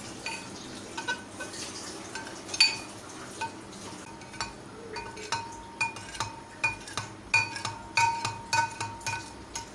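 Metal knife blade tapping against a glass bowl while cutting set mango jelly, each tap giving a short ring. The taps are sparse at first, with the loudest one a few seconds in, then come faster, about two or three a second, in the second half.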